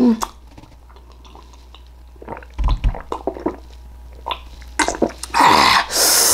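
A person sipping and gulping water from a drinking glass, with small mouth clicks and light knocks of the glass, then a loud breathy exhale near the end.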